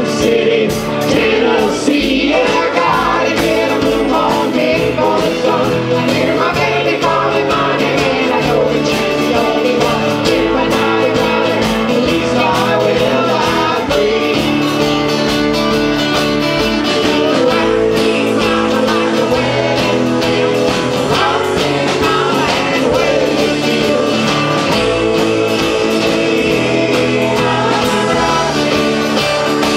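Live band playing a country song: a woman sings lead into a microphone over strummed acoustic guitars and upright bass.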